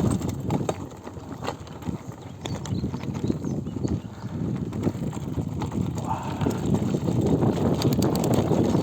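GT Avalanche Elite mountain bike being ridden over a trail: tyre rumble mixed with rattling clicks and knocks from the bike. It quietens from about a second in and builds again toward the end.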